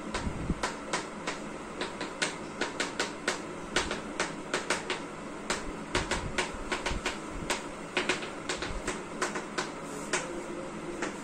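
Chalk writing on a chalkboard: a run of quick, sharp, irregular taps as each stroke of an equation hits the board, several a second, with brief pauses between groups.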